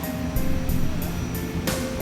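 Background music with a steady beat: a light cymbal tick about three times a second, a heavier cymbal stroke near the end, and held melody notes over a low bass.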